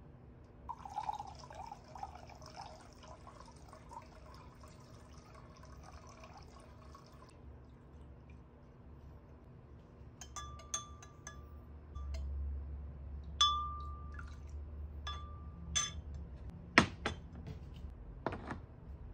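Liquid poured from a plastic bottle into a glass measuring cup, splashing and gurgling for several seconds. Then a spoon stirs the mix and clinks against the glass several times, some clinks ringing briefly. Near the end come two sharp knocks of things being set down on the counter.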